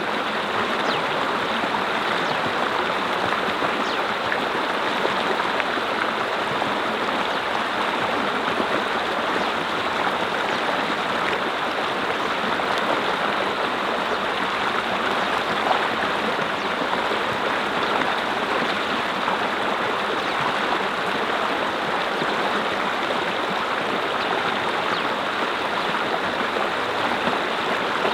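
Mountain brook flowing over rocks: steady rushing and babbling water.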